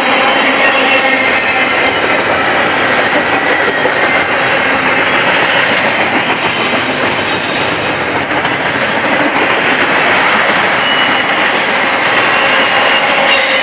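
Double-stack intermodal well cars rolling past at close range: a loud, steady rush of steel wheels on rail. Thin high wheel squeals come in during the later seconds.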